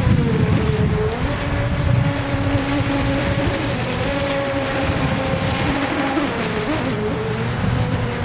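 Dual brushless electric motors of a 22-inch RC jet ski running on the water: a steady electric whine whose pitch dips briefly about half a second in and again near the end, over a low rushing noise.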